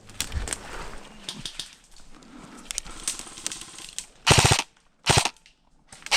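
Airsoft gun firing short full-auto bursts, the rapid even rattle of shots coming twice near the end, with a third burst starting at the very end; before that only faint clicks and rustling of gear.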